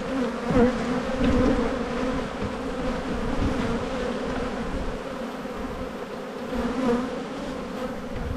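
Honey bees buzzing around an open hive: a steady hum whose pitch wavers slightly.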